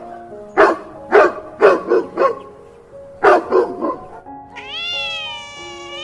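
A dog barking about seven times in short sharp barks, then a cat giving one long meow that rises and then falls, over soft background music with held notes.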